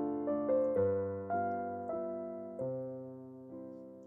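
Slow background piano music: single notes and chords struck about every half second to a second, each left to ring and fade, growing softer toward the end.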